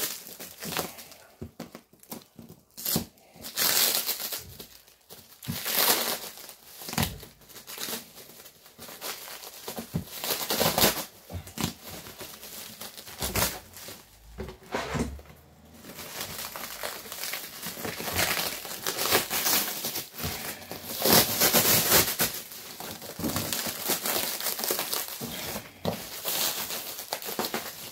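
Black plastic sheeting wrapped around a parcel being torn and crumpled by hand: irregular rips and crinkles that come and go.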